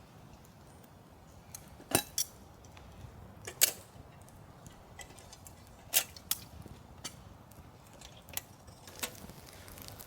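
Sharp clicks and light knocks at irregular intervals, about eight in all, the loudest about two, three and a half, and six seconds in, over a quiet background.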